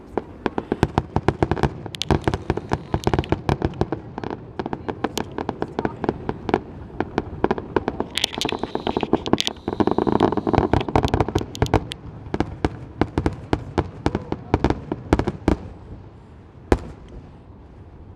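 Aerial fireworks barrage: a rapid, dense string of shell bursts, many bangs a second, merging into a continuous rumble and crackle about halfway through. The bangs thin out near the end, with one last single bang.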